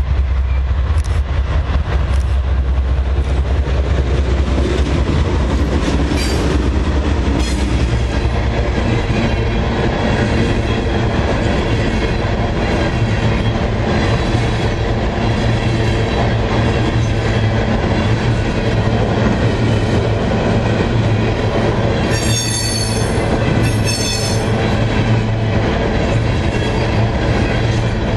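Empty coal train passing close by. The GE C40-8W diesel locomotives rumble past at first, then the empty steel hopper cars roll by with a steady rumble and wheel clatter. Two brief high-pitched wheel squeals come about three-quarters of the way through.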